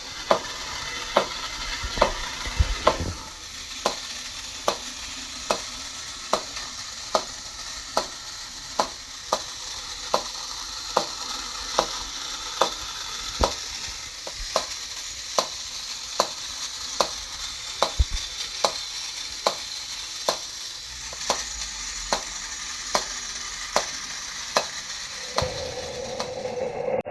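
1950s Cragstan Popcorn Vendor battery-operated tin toy running: a steady rattle of its little balls bouncing in the popper, with a sharp regular click roughly every three-quarters of a second. The clicks stop near the end.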